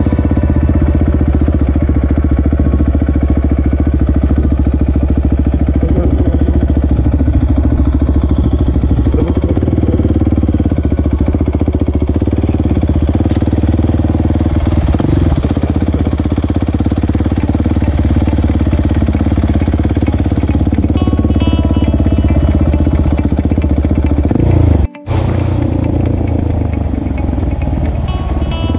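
Motorcycle engine running steadily while riding, with music playing along. The sound drops out for an instant near the end.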